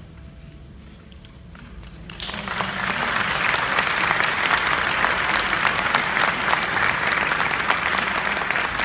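Audience applause breaking out suddenly about two seconds in and going on steadily, after the last notes of the song fade out faintly.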